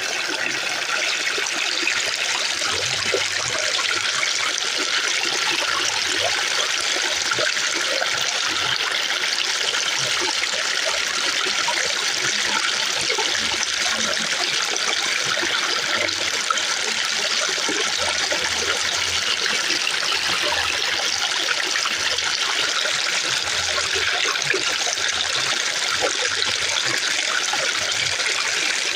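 Fountain water splashing and trickling steadily, an even unbroken hiss of falling water.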